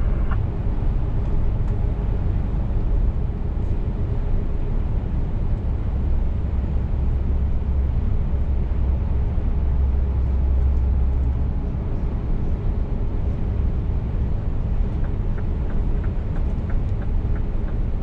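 Steady low drone of the diesel engine and road noise inside a Scania S500 truck's cab while it cruises along the highway, a little louder and deeper for a few seconds in the middle.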